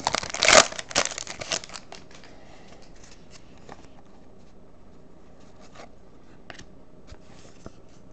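Foil trading-card pack wrapper crinkling and tearing as it is opened, loudest in the first second, then fading. Faint rustles and light clicks follow as the cards are handled.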